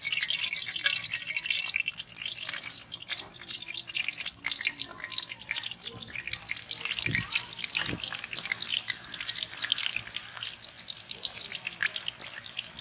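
Pakoda batter sizzling and crackling as handfuls are dropped into hot oil in an iron kadai for deep frying. Two dull thumps come a little after the middle.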